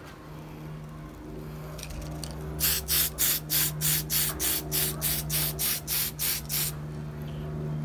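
Aerosol spray can of primer fired in a quick run of short hissing bursts, about four a second for some four seconds, laying a light coat on a plastic model. A steady low hum runs underneath.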